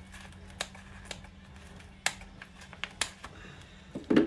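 Scissors snipping through a thin black plastic nursery pot, giving irregular sharp clicks and crackles of the plastic, over a steady low hum. A louder thump comes near the end.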